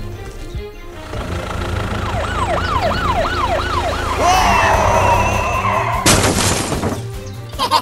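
Police siren sound effect in a fast up-and-down yelp of about three sweeps a second, over background music. A wavering whine follows, then a burst of hiss lasting just under a second.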